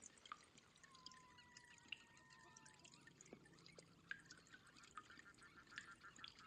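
Faint trickling and dripping water, dotted with many small clicks and ticks. A thin, slightly falling whistle-like tone sounds early on, and a quick patter of clicks comes about five seconds in.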